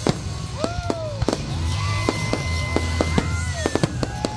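Fireworks display: a rapid, irregular string of sharp bangs and crackles from bursting shells, with music playing along underneath.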